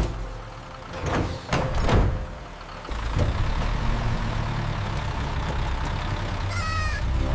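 Tractor engine sound effect: a few knocks, then from about three seconds in the engine runs with a steady low rumble.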